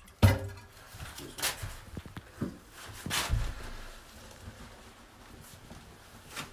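Toto one-piece toilet flushed with its water supply shut off to drain the tank: a sharp clunk of the flush lever, a few more knocks, then the tank water emptying into the bowl as a faint, fading rush.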